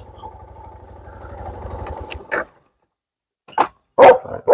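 A Yamaha trail motorcycle's single-cylinder engine running with an even pulse, then switched off about two and a half seconds in. A dog barks three times near the end, louder than the engine.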